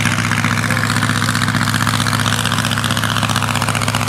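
1910 Hanriot monoplane's air-cooled engine running steadily with fast, even firing pulses, on its takeoff run for a short hop.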